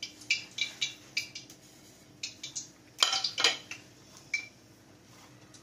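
Sliced onions, green chillies and crushed garlic rustling and crackling as a hand tosses them with salt in a bowl, with a few light clinks against the bowl.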